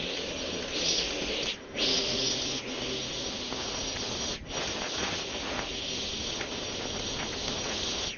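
String trimmer running steadily as its line cuts grass along a lawn edge, a continuous hissing whir. It dips for a moment twice, about one and a half seconds in and again about four and a half seconds in.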